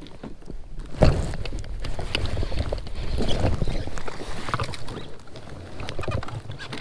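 Water splashing and irregular knocks against the side of a fishing kayak as a hooked fish is brought alongside and grabbed by hand. The loudest knock comes about a second in.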